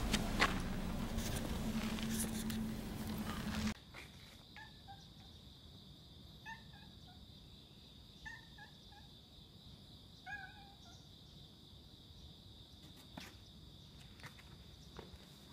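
Outdoor street noise for the first few seconds, then an abrupt change to a quiet background with a steady high-pitched tone. Over it come four or five short clusters of small chirping calls, two or three quick falling notes each.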